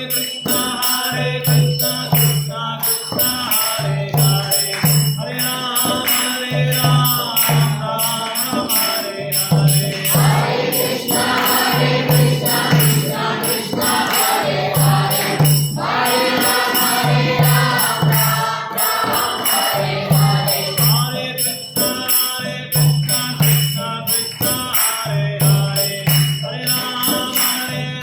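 Devotional kirtan: a group chanting together over a drum beating a steady repeating pattern and small hand cymbals ringing rhythmically.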